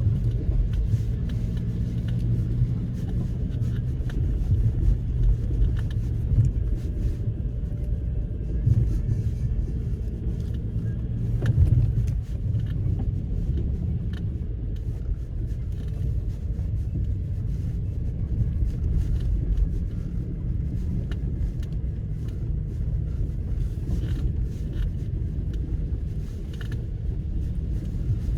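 Nissan X-Trail T30 with its 2.0-litre petrol four-cylinder engine driving slowly over rough off-road ground: a steady low rumble, with scattered short knocks and rattles, the loudest about halfway through.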